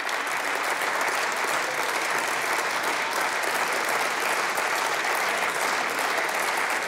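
Steady applause from the deputies seated in a parliamentary chamber.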